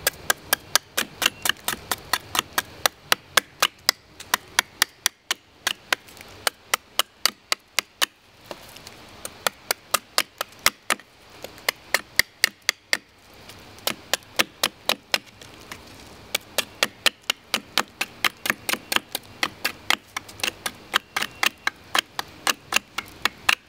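Fremont Knives Farson hatchet chopping a point onto the end of a thin stick: quick, light, sharp strokes of the steel blade into wood, about three a second, in runs with short pauses. The strokes lift small shavings off the stick.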